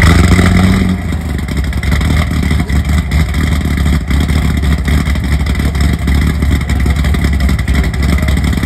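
Car engine and exhaust running with a steady low rumble, a brief extra droning tone in the first second.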